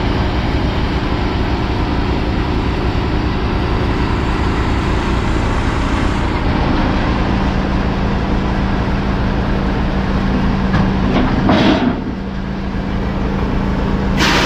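Heavy diesel engine running steadily, with two short bursts of hiss-like noise, one about three quarters of the way in and one near the end.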